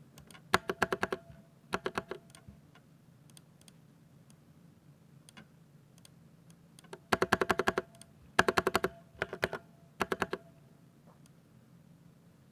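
Typing on a Ducky 60% mechanical keyboard with silver linear switches: quick runs of sharp keystroke clicks, a short burst near the start and another about two seconds in, scattered single key presses, then four dense runs in a row from about seven seconds in.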